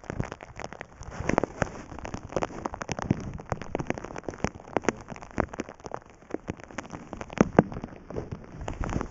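Irregular water splashes and drips close to the microphone, a patter of sharp taps of uneven loudness over a steady wash.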